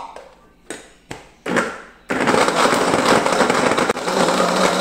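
A few knocks, then about two seconds in an electric blender starts and runs steadily at speed with a motor hum, blending siriguela (purple mombin) fruit with water to loosen the pulp from the seeds.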